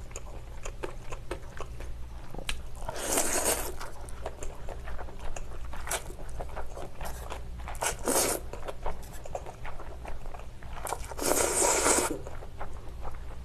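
Close-miked mouth sounds of biting and chewing slices of pork belly: many small wet clicks, with three louder, rougher stretches at about three, eight and eleven seconds in.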